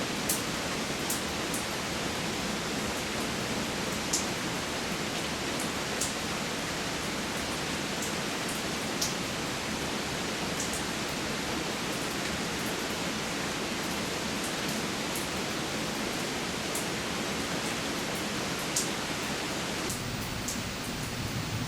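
Steady rain falling, heard from a back porch as an even hiss. A few single drops tick sharply close to the microphone, and a low rumble comes up near the end.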